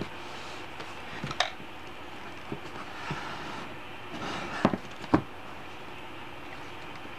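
Hardcover pop-up book opened by hand: the board cover swings open and the paper pop-up unfolds, with a few light knocks and paper rustles, the two sharpest about halfway through, over a steady low hiss.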